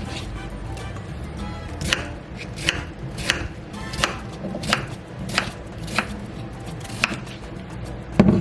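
Kitchen knife chopping vegetables on a cutting board, with sharp, even strokes about every two-thirds of a second.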